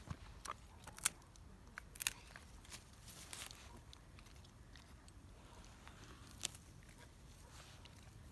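A German shepherd-type dog chewing and crunching on something in the grass. There are a few sharp crunches, the loudest about one and two seconds in, and one more later on.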